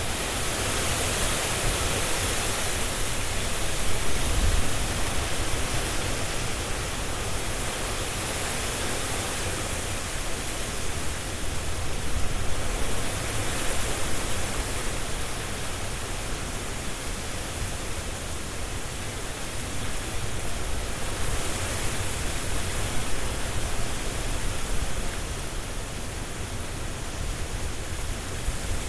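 Strong wind rushing through trees and rustling the leaves, a continuous roar that swells in gusts a few times.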